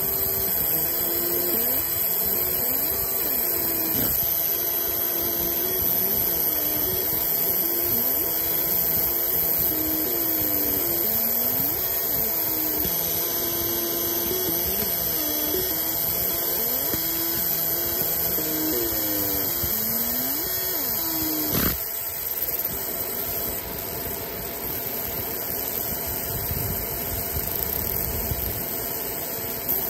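Galvo laser engraver marking a brass coin: the scanner mirrors whine in tones that keep stepping and sliding up and down, over a steady fan hiss. About 22 seconds in there is a click, and the stepping tones give way to a lower, rougher hum.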